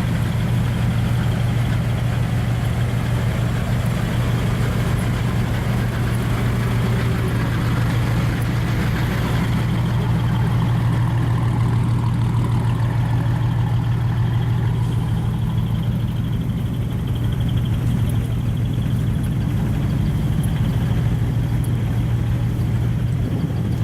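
Large truck's diesel engine idling steadily, with a strong, even low hum.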